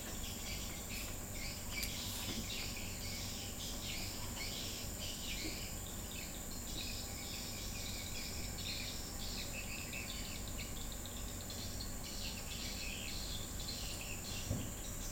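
Insects chirping in uneven pulses over a steady high whine, with no other sound standing out.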